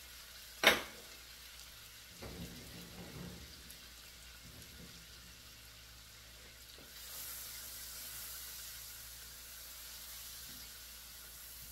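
Chopped onions and celery sizzling in hot chicken drippings in a pan, with one sharp knock less than a second in. The sizzle grows louder and hissier about seven seconds in.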